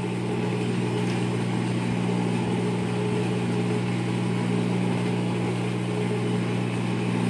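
Electric motor of a Singer industrial overlock humming steadily at idle, the machine not stitching.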